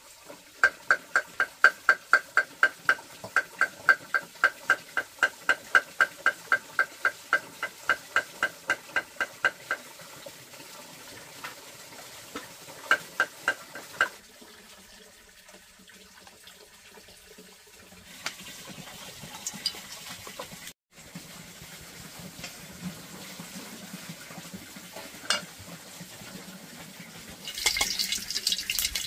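A utensil beating rapidly against a ringing bowl, about four strokes a second for some ten seconds, then a few scattered clinks. Near the end a pan starts sizzling with frying food.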